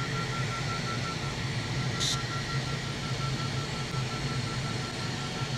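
Air rushing past the Duo Discus glider's cockpit with a steady low rumble, under a thin high electronic tone in rapid pulses from the variometer, which signals that the glider is climbing. A brief hiss comes about two seconds in.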